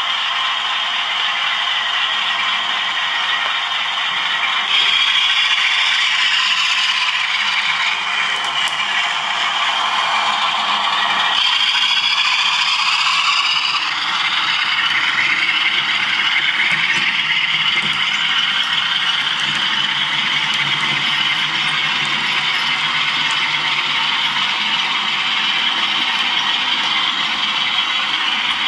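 Model diesel locomotive's DCC sound decoder playing a diesel engine sound through a small onboard speaker, with the rattle of the model's wheels and mechanism on the track. The engine note runs steadily and changes character about five and again about twelve seconds in.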